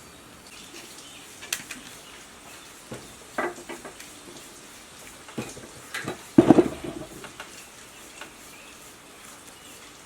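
Scattered knocks and clinks of metal parts being handled, with a louder clatter about six and a half seconds in.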